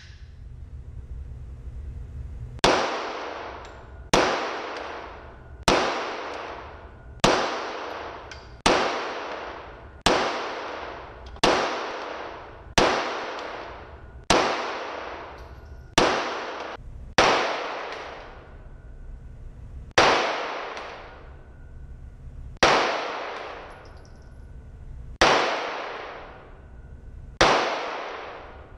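Pistol shots fired one at a time at a steady pace, about one every second and a half, each ringing on in the echo of an indoor range; in the last part the gaps widen to over two seconds.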